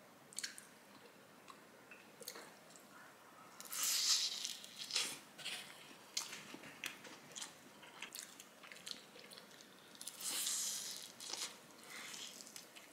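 Biting and chewing a garlic-soy fried chicken drumstick close to the microphone: wet chewing and small clicks, with two louder crisp bites about four seconds in and again about ten seconds in.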